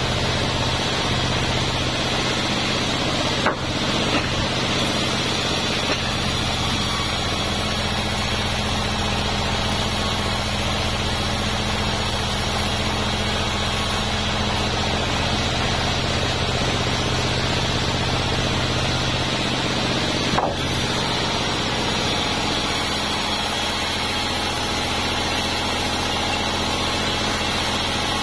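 Large band sawmill running with a steady drone while a durian wood plank is fed through the blade. Two short knocks stand out, one a few seconds in and one about two-thirds of the way through.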